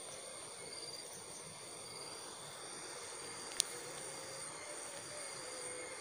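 Steady high-pitched drone of insects, several trilling at different pitches, with short repeated chirps in the first two seconds. One sharp click about three and a half seconds in.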